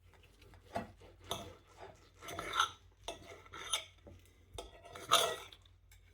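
Knife and fork scraping and knocking on a hard surface as cooked beef brisket is cut and pulled apart, in about six short, separate strokes.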